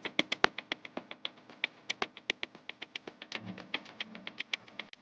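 Rapid, irregular sharp clicks, several a second, like keyboard typing.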